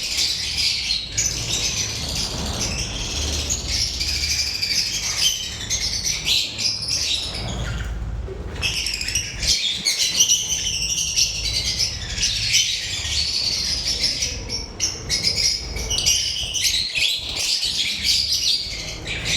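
Lovebirds chirping continuously, many quick high chirps overlapping, with a short pause about eight seconds in, over a low rumble.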